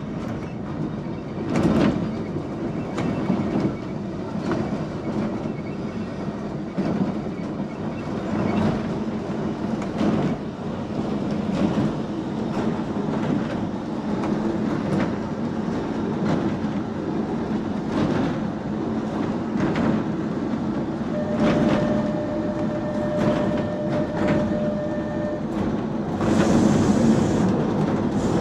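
Manx Electric Railway tram running along its track, heard from the motorman's platform: a steady rumble with the wheels clicking over rail joints. A steady whine comes in for a few seconds past the middle, and a brief loud hiss comes near the end.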